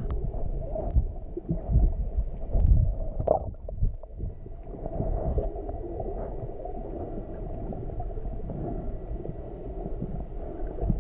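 Muffled underwater sound picked up by a camera under the sea: dull water rush with gurgles, low thumps and a few clicks from the swimmer moving through the water, heavier in the first few seconds, then settling into a steady low hiss.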